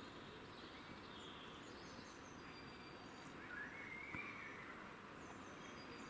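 Faint outdoor background hiss with distant small birds chirping now and then, and one longer, rising call about three and a half seconds in.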